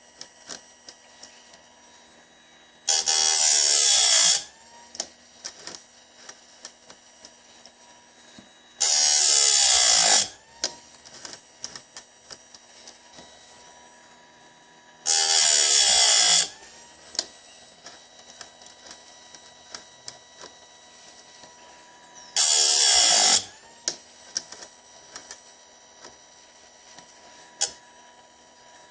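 Bench-mounted chainsaw chain sharpener grinding teeth one at a time: four short bursts of the grinding wheel, about six seconds apart, each winding down in pitch as it ends. Light clicks and ticks between the bursts come from the chain being advanced and set for the next tooth.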